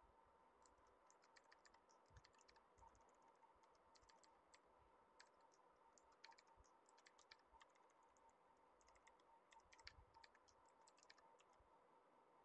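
Faint computer keyboard typing: irregular clusters of quick key clicks, over a faint steady hum.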